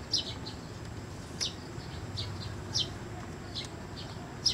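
A small bird chirping again and again: short, high chirps that slide downward, about one or two a second, over a steady low background rumble.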